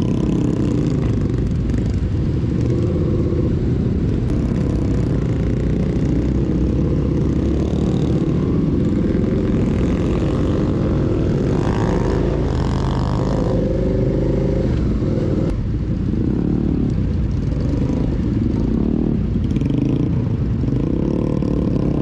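Onboard sound of a Suzuki SV650 V-twin motorcycle riding in traffic: engine running under a loud, steady low rush of wind and road noise.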